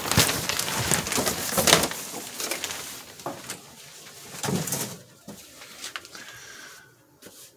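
Irregular rustling and brushing noise as the phone is carried past the grow tent's fabric, loudest in the first two seconds and dying away near the end.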